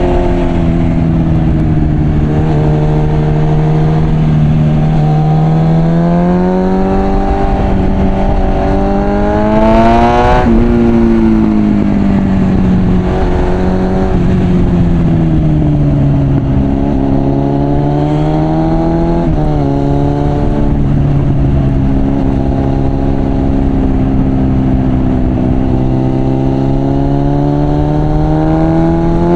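Suzuki Bandit 650's inline-four engine through an aftermarket Mivv exhaust. The revs rise steadily to a peak about ten seconds in, then drop suddenly at an upshift. They rise and fall again with more gear changes, hold fairly steady for a while, and climb again near the end, over a rush of wind.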